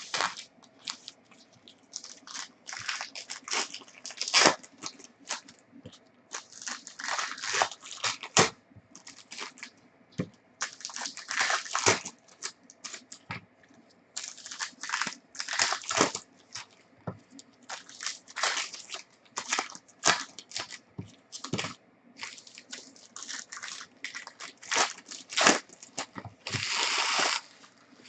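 Trading card pack wrappers crinkling and tearing as the packs are handled and opened, in an irregular string of rustles and sharp snaps, with a longer crinkle near the end.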